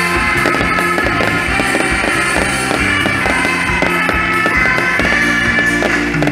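Music, with fireworks crackling and popping over it.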